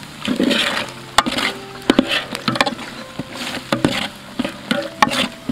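A metal ladle stirring thick tomato-and-spice masala in a large metal cooking pot: wet, squelching stirring with a sharp knock of the ladle against the pot every second or so.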